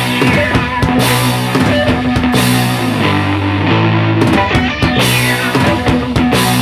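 Rock music with electric guitar and drums, played at a steady loud level.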